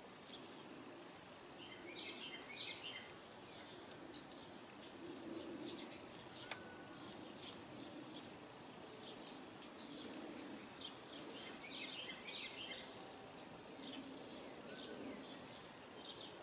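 Quiet outdoor background noise with faint bird chirps coming and going throughout, and a single sharp click about six and a half seconds in.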